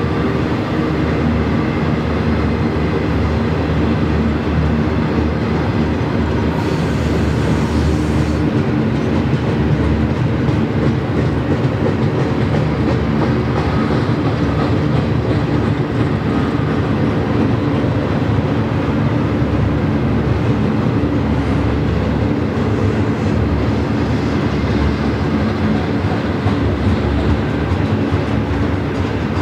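Double-stack intermodal freight train's loaded well cars rolling past steadily, steel wheels running on the rails in an unbroken stream of noise.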